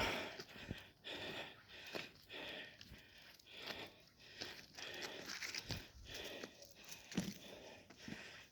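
A hiker's footsteps crunching on rocky ground and his heavy breathing as he climbs a steep hill, in a steady rhythm of short scuffs with a few low thuds.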